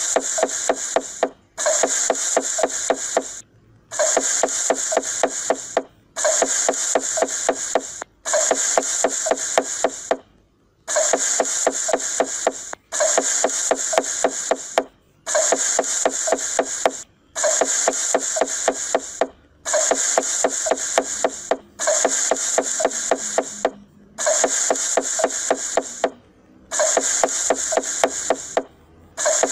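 Knife chopping rapidly on a wooden cutting board, with quick strokes and sharper knocks, in bursts of about two seconds separated by short breaks that repeat like a loop.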